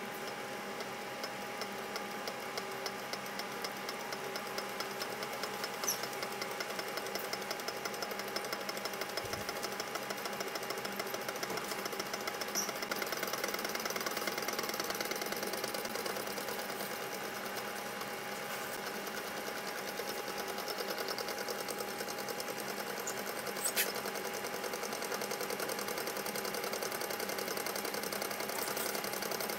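Small low-temperature-difference Stirling engine running, its piston and linkage making a rapid, steady ticking with each turn of the flywheel after it is started by hand.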